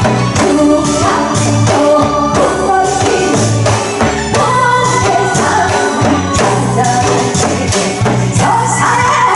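Lively Korean folk-style music with a sung or played melody line over dense, sharp drum and jingle strokes.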